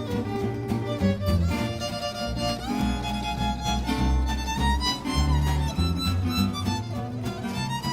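Swing jazz played live on violin, two acoustic guitars and bass, with the violin carrying the melody in long held notes that slide between pitches over the guitars' strummed rhythm and a walking bass line.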